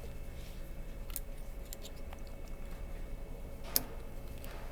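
A few sharp metallic clicks, the loudest about three and a half seconds in, as a snap ring is forced into a power steering pump housing held in a vise, over a steady low hum.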